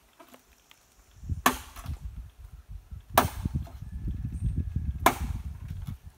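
Machete chopping into a standing green bamboo culm: three sharp strikes, under two seconds apart, over a low rumble that starts about a second in.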